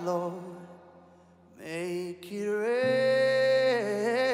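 A man singing long held notes to his own acoustic guitar, whose chords ring on underneath. The voice fades to a quiet dip about a second in, then comes back with a long sustained note.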